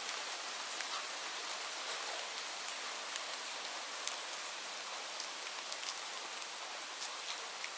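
Steady rain falling on leaves: an even hiss with scattered single drops ticking sharply through it.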